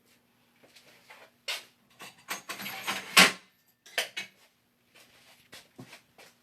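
Irregular clicks and clatters of small hard objects being handled and set down, busiest and loudest about three seconds in, then thinning to scattered taps.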